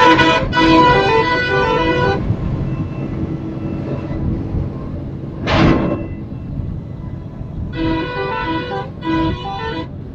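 Bintang Mas Jaya bus's six-trumpet telolet horn playing a stepping multi-note tune until about two seconds in, then two more short phrases near the end, over a steady engine and road rumble. A brief burst of noise comes about midway.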